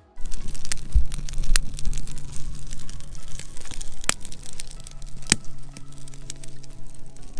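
Small fatwood and kindling fire crackling, with a few sharp pops. Background music with sustained low notes plays throughout.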